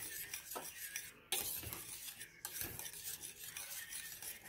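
Small wire whisk stirring thick, freshly cooked pastry cream in a glass bowl, its wires scraping and clicking against the glass in quick repeated strokes as lumps of butter are mixed in.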